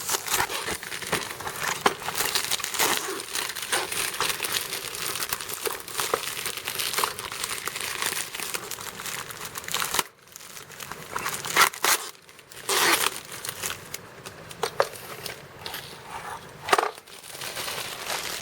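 Packaging being crinkled and pulled off a new wrench set, a dense run of crinkling and tearing, then a short pause about ten seconds in and a few separate crinkles.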